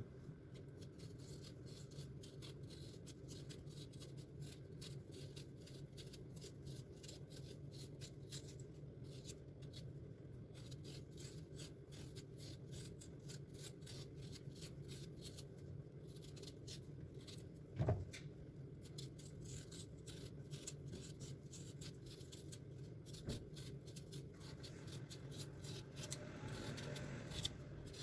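Quiet hand-work sounds: rapid light scratching and ticking over a steady low hum, with one sharper knock about eighteen seconds in.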